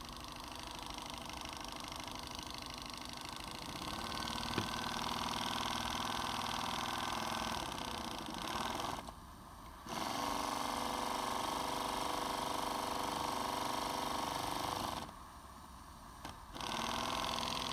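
Microcosm M29 two-cylinder model steam engine running slowly on steam from a butane-fired vertical boiler, a steady mechanical running sound. It drops away briefly twice, about nine seconds in and again at about fifteen seconds, then picks up again.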